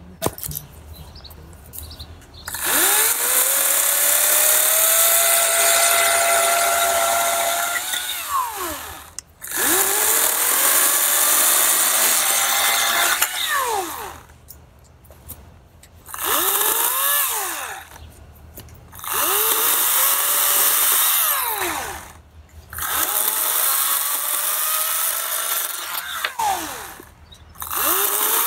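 EGO 56-volt cordless 14-inch chainsaw cutting through a log in six bursts. Each burst spins up with a rising whine, runs steady while cutting, and winds down with a falling whine, with short pauses between. The first burst is the longest, about six seconds.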